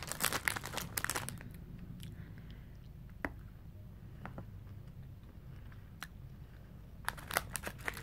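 Clear plastic chocolate packaging crinkling and crackling as it is handled, for about the first second and again near the end. In between it is quieter, with a few isolated soft clicks.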